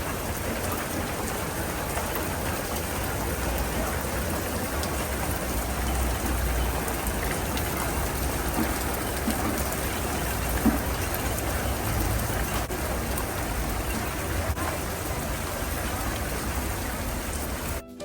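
Steady heavy rain pouring down during a sudden storm, an even hiss of rain with a low rumble underneath.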